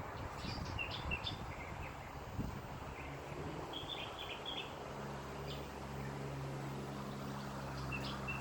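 Small birds chirping in short, scattered calls over low wind rumble on the microphone. About five seconds in, a steady low motor hum starts and runs under the chirps.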